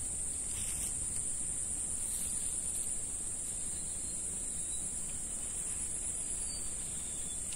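Steady high-pitched insect drone, like a chorus of crickets, over a low rumble.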